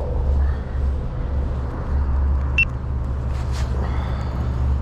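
Steady low rumble with one brief high click about two and a half seconds in.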